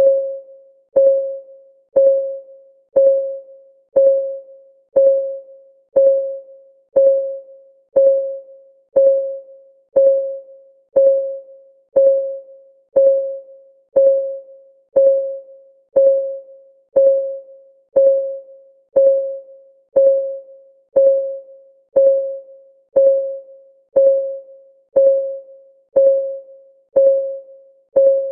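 Countdown timer's clock-tick sound: a short pitched tick once a second, each one fading quickly, in a steady even rhythm.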